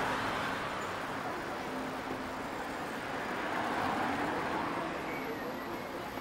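Road traffic passing close by: a van and then a car drive past, their engine and tyre noise swelling once at the start and again about four seconds in over a steady hum of city traffic.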